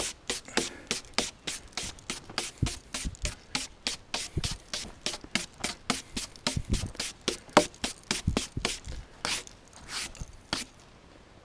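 Quick, repeated strokes of a brush, about four a second, which slow and stop near the end.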